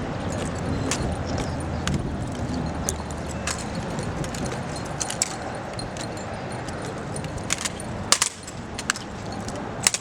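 Drill rifles being handled in an exhibition rifle drill routine: scattered sharp clacks and slaps of hands and rifles, the loudest few near the end, over a low outdoor rumble that thins out about halfway through.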